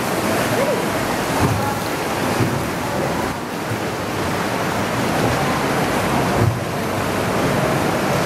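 Sea waves washing around a small boat, with wind rushing over the microphone: a steady loud rush broken by a few low thumps.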